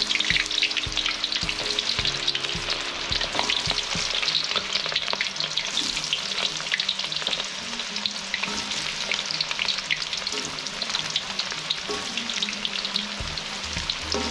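Slices of goroho banana deep-frying in hot cooking oil in an aluminium wok: a dense, steady crackling sizzle of bubbling oil.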